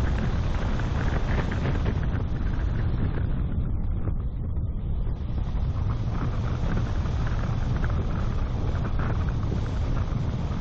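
Wind buffeting the microphone of a car-mounted camera, over the low rumble of the car driving along a rough tarmac road.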